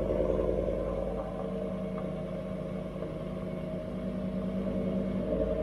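2019 Ford F-150's engine idling steadily through a newly fitted Corsa cat-back exhaust in its Sport form, with the stock resonator still in place, on its first start.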